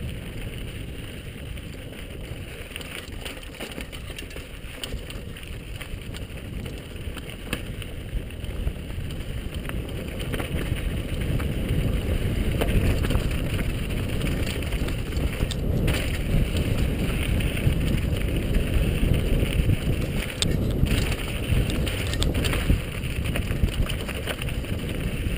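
Wind buffeting the microphone of a helmet-mounted camera, over the crunch and clatter of a downhill mountain bike's tyres and frame on a rocky dirt trail. The noise grows louder about ten seconds in.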